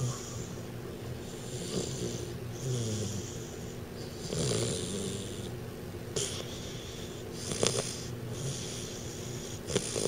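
A 12-week-old American Bulldog puppy snoring in his sleep: a run of hissing, wheezy breaths, about seven in all, some with a short falling snore tone, and one brief sharp catch about three-quarters of the way in. His owner puts the snoring down to his big overbite.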